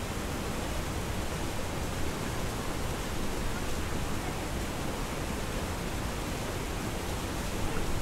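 Waterfall with water pouring down through an ice-covered fall: a steady, even rush that does not change.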